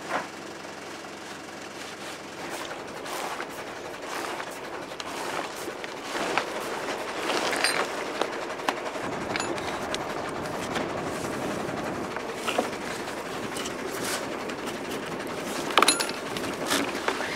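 Rushing wind-and-water noise of a wooden Couta boat under sail, growing louder after about six seconds, with scattered sharp clicks and knocks from the rigging and deck gear.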